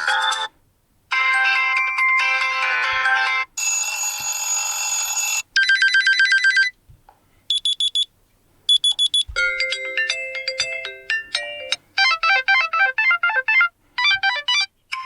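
Default system ringtones of a Meizu M5s smartphone, played one after another. About seven short electronic melodies and beeping tones follow in quick succession, each cut off abruptly after a second or two as the next one begins.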